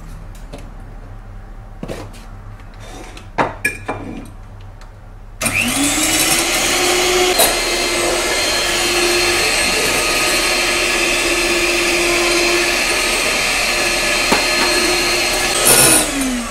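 A few clicks and knocks, then an electric hand mixer switches on about five seconds in, spinning up and whirring steadily as it whips egg whites to foam, and winds down just before the end.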